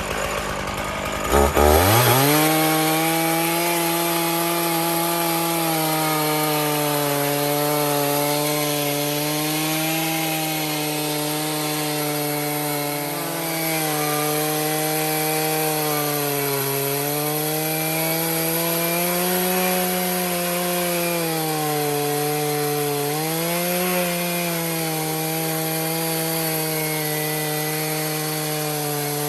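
Stihl MS461 two-stroke chainsaw on an Alaskan chainsaw mill, throttled up about a second and a half in and then running at full throttle while ripping a cedar log lengthwise into slabs. Its engine pitch sags and recovers several times as the cut loads the saw.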